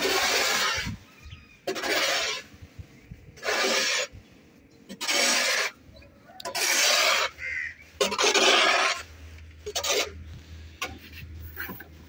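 Shovel blade scraping across a concrete floor while mixing a heap of cement-sand mortar. There are about six long scraping strokes, one every second and a half or so, then a few shorter scrapes near the end.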